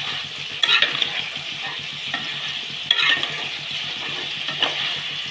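Okra sautéing with masala paste in hot oil in an aluminium kadai, sizzling steadily as a spatula stirs and scrapes the pan. There are louder scrapes about a second in and again about three seconds in.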